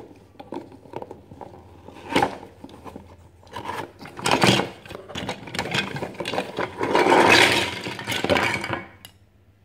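Cardboard toy box being opened and handled, with flaps rubbing and scraping. Near the end it is tipped up and chunky plastic building blocks clatter out onto the table.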